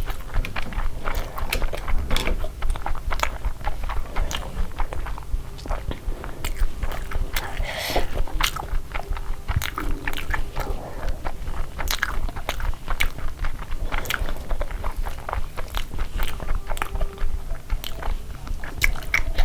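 A person eating close to the microphone: steady chewing with many sharp, irregular crunches of crisp food.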